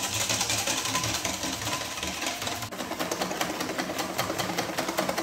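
Double cream being whisked by hand with a wire balloon whisk in a stainless steel bowl: a fast, steady run of clicks as the wires strike the metal bowl, over the swish of the cream. The cream is thickening as it whips.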